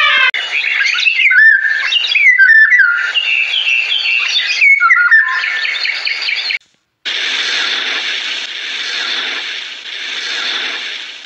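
A small songbird singing a rapid, varied run of whistled and chirping notes, many gliding up and down, for about six seconds. After a brief gap, a steady hiss follows that swells and fades slowly.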